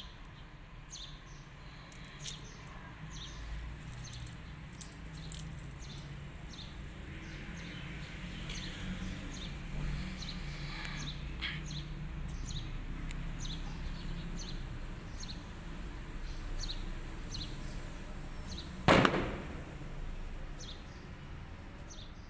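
Small birds chirping here and there over a low steady hum, with one sharp bang, the loudest sound, about three seconds before the end.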